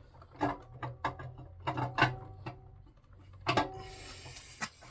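A 350 Chevy small-block's camshaft being slid out of its bearings in the block: a string of sharp metallic clinks, each ringing briefly, and a scraping slide about three and a half seconds in.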